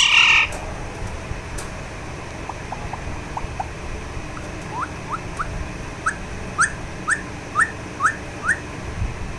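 Alexandrine parakeet calling. A loud call comes at the start, then soft short chirps, and from about halfway a run of short rising whistled chirps, about two a second.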